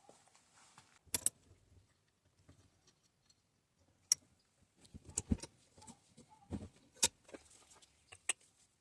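Small metal parts and hand tools being handled, with a handful of sharp, scattered clicks and clinks.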